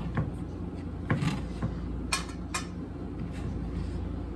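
Knife and utensils knocking and clicking on a cutting board during food prep, about half a dozen sharp taps spread through, over a steady low hum.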